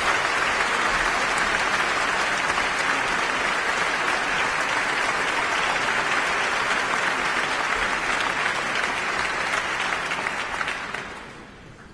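Concert audience applauding, steady and dense, then dying away over the last couple of seconds.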